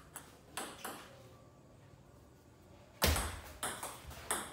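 Table tennis ball clicking against the table and bats: a few clicks near the start, a quiet pause, then from about three seconds in a quick run of sharp clicks, three to four a second, the first one loudest.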